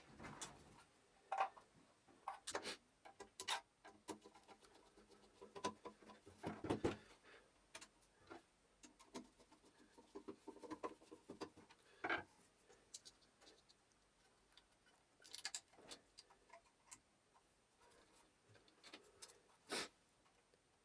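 Irregular light clicks and knocks of hand tools and small metal and plastic vacuum-cleaner motor parts being handled and fitted together while the motor is reassembled, with a few louder knocks scattered through.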